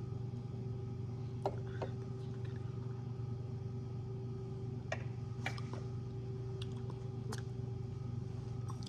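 A steady low machine hum, with several light clicks and taps scattered through it.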